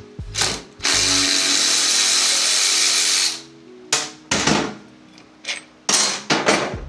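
Cordless power ratchet running steadily for about two and a half seconds, backing out an exhaust bracket bolt. It is followed by several short knocks as the parts are handled.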